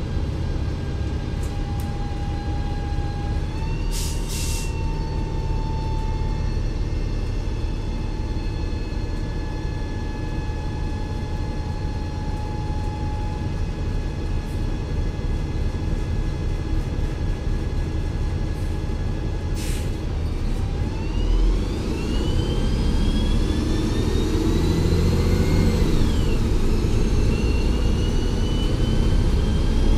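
2004 Gillig Advantage T29 transit bus with a Cummins ISL diesel and Voith D864.3E automatic transmission, running steadily with a constant whine and two short bursts of air hiss. About twenty seconds in it accelerates: the engine and driveline whine rises in pitch, drops at a gearshift a few seconds later, and climbs again as it gets louder.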